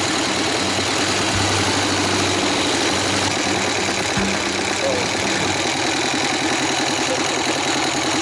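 Harley-Davidson Sportster's V-twin engine running at low speed, heard from the bike itself, with steady wind and road noise on the microphone.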